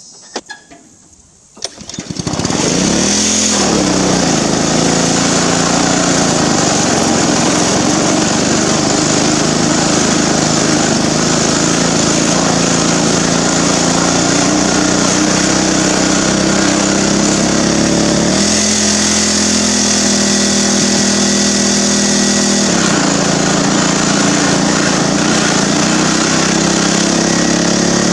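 Cub Cadet riding mower's small gas engine catching after a couple of brief bursts, about two seconds in. It then runs loud and steady at high revs, its pitch shifting a couple of times as the load changes.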